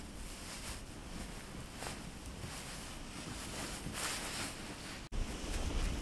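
Wind buffeting the microphone in a snowstorm: a low rumble with soft hissing rustles now and then. The sound drops out for an instant near the end, then the rumble comes back louder.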